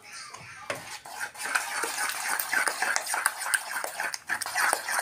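Metal spoon stirring and scraping a thick flour-and-water batter in a metal bowl: a quick, busy run of clinks and scrapes that starts about a second in.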